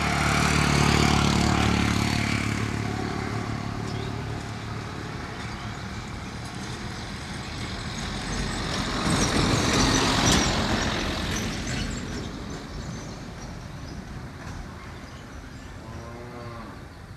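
Motor vehicle engines passing, swelling and fading twice: once around the start and again about ten seconds in. A short low call is heard near the end.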